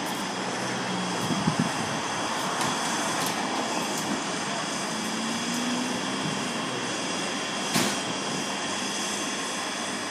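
1991 Grumman FireCat fire engine idling in the station bay, a steady engine drone with a few short knocks.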